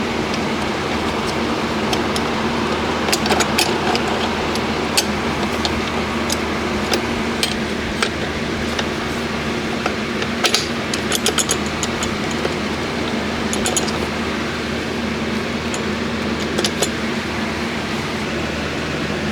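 Steady mechanical hum of a shop machine running, with scattered sharp metallic clicks and clinks as transmission parts are handled and fitted, in a cluster a little past the middle.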